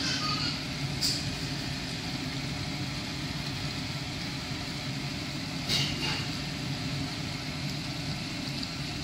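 Steady low mechanical hum of kitchen noise at the stove, with two brief light clicks, one about a second in and one near six seconds in.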